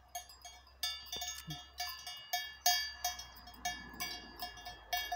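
Bells on grazing sheep clanking irregularly, about three ringing strikes a second, as the flock moves and feeds.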